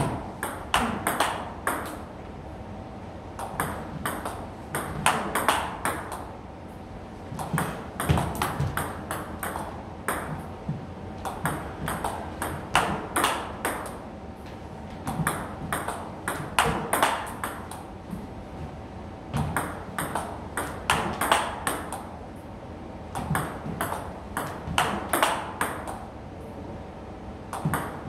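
Table tennis rally: the ball clicks rapidly back and forth off bats faced with Tibhar Hybrid MK rubber and off the table, in dense runs of hits every few seconds.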